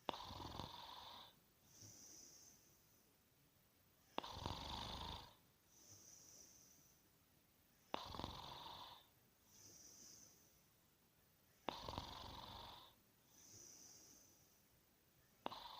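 A sleeping person snoring: five loud snores, one about every four seconds, each starting abruptly and lasting about a second. Between the snores comes a softer, hissing breath.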